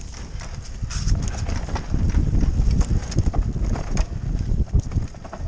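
Electric mountain bike riding fast down a rough dirt trail: tyres rumbling over dirt and roots, with quick, irregular clattering knocks and rattles from the bike as it takes the bumps.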